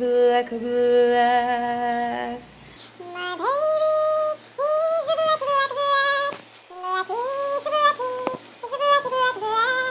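Background music: a song with a woman singing, long wavering held notes first, then shorter notes that slide up into pitch.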